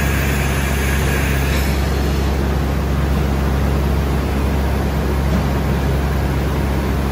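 SNK Nissin BP130 CNC horizontal boring mill running, a steady low hum with hiss. A higher whine stops just under two seconds in.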